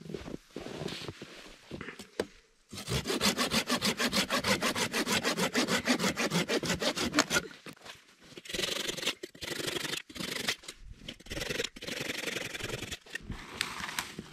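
A hand saw cutting through a dead branch in quick, even strokes for about four and a half seconds. After that come irregular rustling and snapping as dry twigs are broken off by hand.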